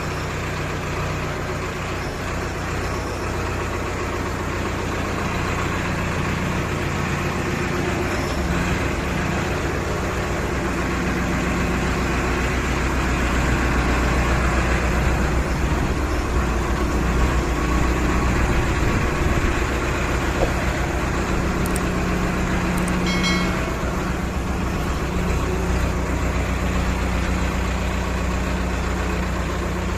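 Powertrac Euro 55 tractor's diesel engine running steadily as the tractor is driven slowly through shallow water. It grows louder through the middle as the tractor comes close and eases off a little near the end.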